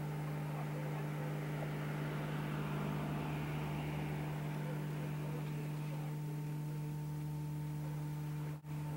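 A steady low hum with a few fainter steady tones over a wash of outdoor road noise; the sound drops out for an instant near the end.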